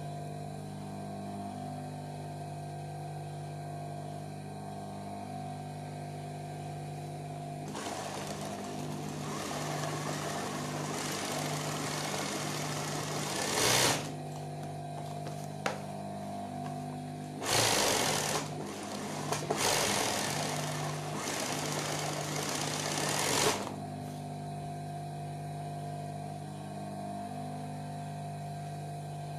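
Industrial sewing machine stitching free-motion embroidery in two fast spells of about six seconds each, the first starting about a quarter of the way in and the second a few seconds after it ends, over the steady hum of its running motor.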